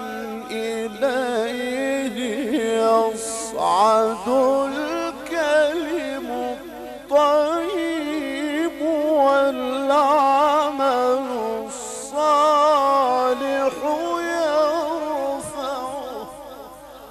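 A male Quran reciter's solo voice in the melodic mujawwad style, holding long ornamented notes with a wavering pitch that climbs and falls through the phrase. The phrase fades out near the end.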